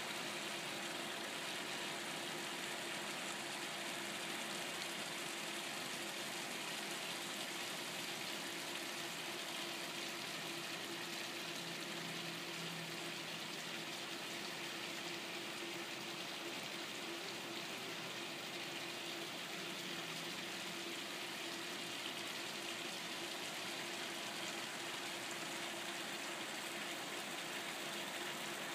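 Steady rush of moving water with a constant low hum underneath, from the pool and spa's circulating water and pump. It runs evenly, with no splashes or knocks.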